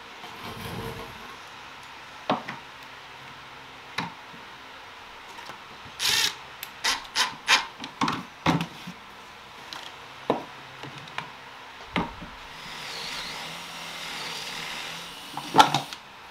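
Cordless drill boring a concealed-hinge cup hole into a wooden cabinet door, the bit (a 35 mm Forstner bit from a Kreg concealed hinge jig) cutting the wood in a run of short bursts in the middle. Single knocks of wood and tools on the workbench come before and after.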